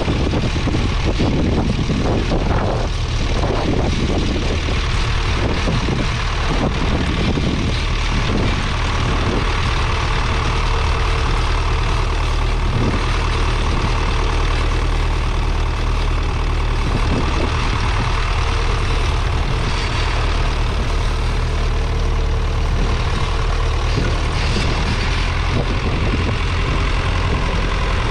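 1958 Massey Ferguson 35's 2.5-litre three-cylinder diesel engine running steadily under load as the tractor pulls a two-furrow mounted plough through the soil.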